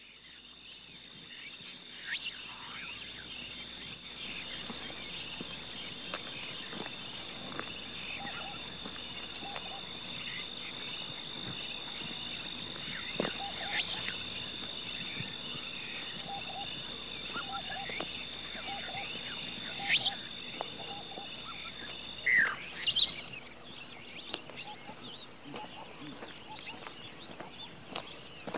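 A high, evenly pulsing chorus of chirping animals, about one and a half pulses a second, with scattered short bird-like calls beneath it. The chorus cuts off suddenly about 22 seconds in and gives way to a softer, steadier high chirring.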